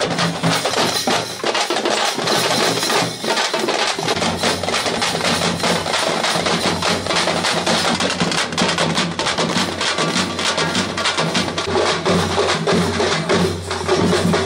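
A folk drum troupe beating a fast, dense rhythm on stick-played barrel drums, with a steady low drone underneath that grows stronger about four seconds in.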